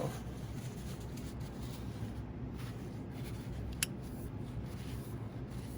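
Faint rubbing and handling noises over a steady low hum, with one short sharp click about four seconds in.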